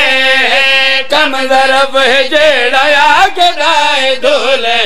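Men's voice chanting a Punjabi elegiac verse into a microphone in the melodic style of a Shia zakir's majlis recitation. Long held notes with a wavering pitch, broken by short pauses between phrases.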